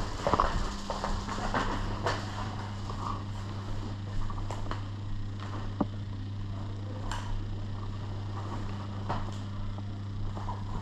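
Scattered footsteps and sharp knocks of gear over a steady low hum in a small indoor space.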